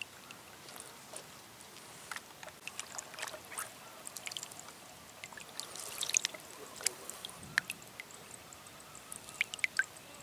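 Faint water lapping and trickling at the reservoir's edge, with scattered light clicks and a brief splash about six seconds in.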